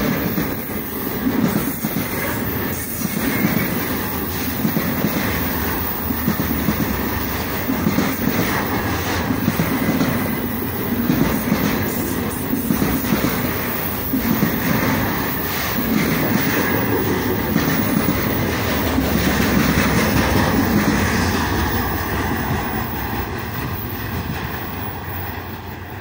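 Freight train of container wagons rolling past, wheels clattering over rail joints with a steady run of knocks. The sound fades over the last few seconds as the end of the train goes by.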